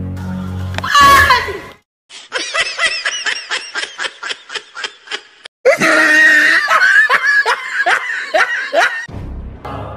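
A short, loud, high scream about a second in, then rhythmic 'ha ha ha' laughter at about four pulses a second, followed by a louder, denser stretch of laughter. Background music cuts off just before the scream and comes back near the end.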